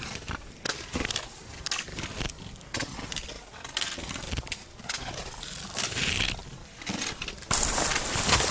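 Hikers' footsteps crunching and scuffing on a rocky trail at an irregular walking pace. Near the end a louder steady hiss comes in.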